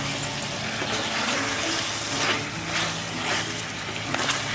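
Chicken curry sizzling and bubbling in a metal pot, with a few scrapes of a spatula stirring it.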